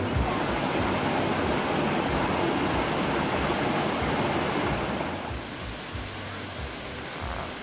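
Rushing water tumbling over rocks in a boulder-filled mountain stream, a steady dense rush that turns quieter about five seconds in.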